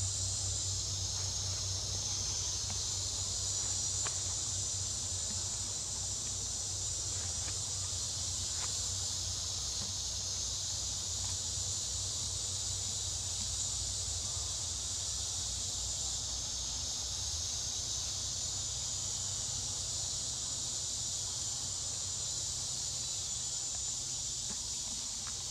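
Steady high-pitched chorus of insects in tropical forest, a continuous buzzing drone with a low rumble underneath.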